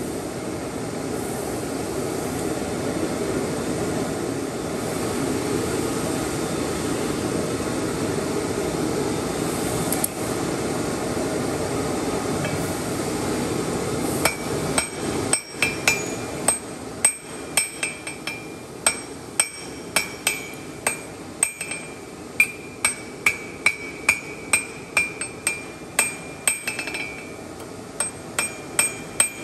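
A steady rushing roar for about the first half. Then a hand hammer strikes steel on an anvil, about two blows a second with a bright metallic ring after each, pausing briefly near the end.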